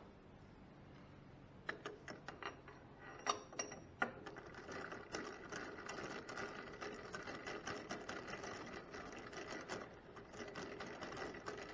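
Metal lathe: a few sharp metal clicks and clinks as the chuck is changed, then from about four seconds in a steady mechanical rattle.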